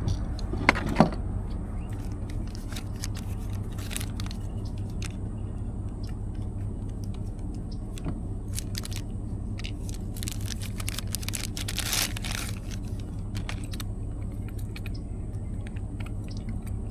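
Small parts of a fuel sending unit being handled and fitted: scattered light clicks, rattles and scrapes, with two sharp clicks about a second in and a longer scrape near the end of the second third, over a steady low hum.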